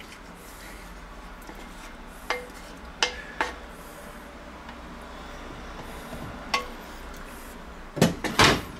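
Wooden spatula scraping and knocking against a frying pan and the rim of a blender jar: a few short, sharp taps that ring briefly. Near the end comes a louder clatter of knocks as the pan is set down on the glass-ceramic hob.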